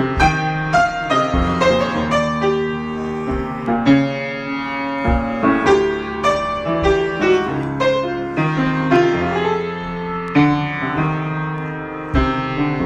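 Solo piano improvisation: a run of melody notes over held low bass notes, played freely without a steady beat.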